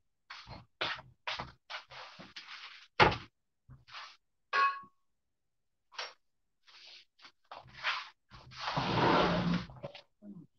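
Kitchen clatter of cookware and utensils: a run of light clicks and knocks, a loud knock about three seconds in, and a metal clang that rings briefly just after. Near the end comes a rushing noise lasting about a second and a half.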